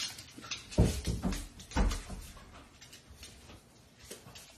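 Footsteps and light clicks on a tiled hallway floor, with two dull thumps about one and two seconds in, then fainter taps.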